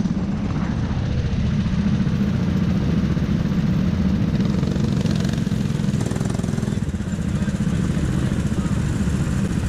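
Go-kart engine running at low revs and idling with a steady, rapid low chug as the kart slows to a stop.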